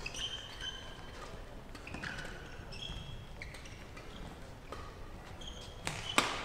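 Badminton shoes squeaking on the court during a rally, with sharp racket hits on the shuttlecock. The loudest are two hits close together near the end, one of them a jumping smash.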